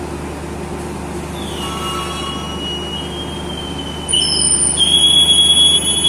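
Railway conductor's whistle: a long, shrill, steady blast starting about four seconds in, after a fainter whistle tone from about a second and a half in, over a steady low hum. It is the conductor's signal that the train is ready to depart.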